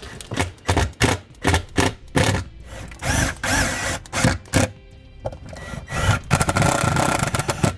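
Handheld power drill driving screws through the base of a plastic battery box into a wooden floor, running twice for a second or two. Before that come a series of knocks and clicks as the box is handled and set in place.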